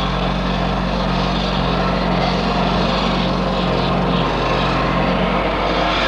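An engine running steadily: a constant mechanical drone with a low hum and a wash of noise over it.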